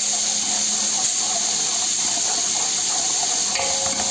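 Ginger-garlic paste frying in hot oil in an aluminium pot, a steady sizzle, with two light knocks of a steel ladle against the pot near the start.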